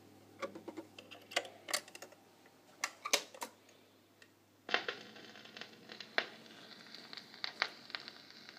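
Scattered clicks and clunks from the RCA EY-4 45 rpm player's record-changing mechanism as it cycles. About halfway through, a steady hiss with light crackles comes in through the player's speaker: the needle has set down in the record's run-in groove and the music has not yet begun.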